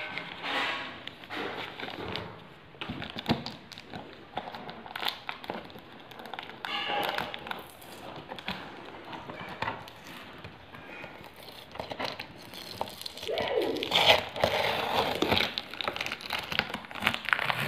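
Cardboard shipping carton being opened by hand: packing tape and cardboard flaps tearing, with paper and plastic crinkling, in irregular bursts that get loudest and busiest late in the stretch.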